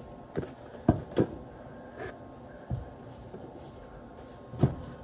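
A few light knocks and clicks of things being handled and set down on a kitchen counter by the stove, about six spread irregularly over a few seconds, with quiet room tone between.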